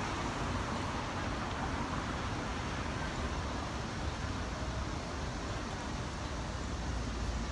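Steady hum of road traffic, an even wash of noise with no single vehicle standing out.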